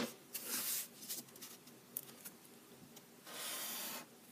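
Black felt-tip marker drawn along the edge of a wooden ruler on paper, a steady stroke of under a second near the end, after a light tap at the start.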